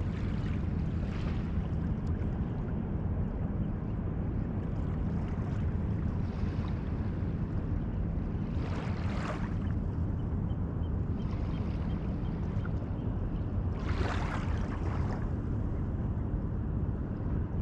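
Steady low rumble of wind on the microphone, with a few brief swishes, the loudest about halfway through and again near the end.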